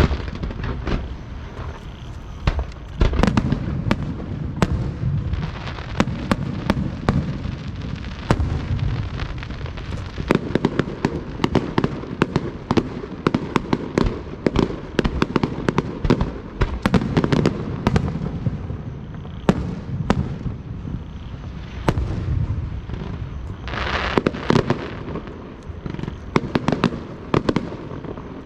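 Aerial fireworks display: shells bursting in quick succession, sharp bangs over a low rumble, with a louder hissing crackle about three-quarters of the way through.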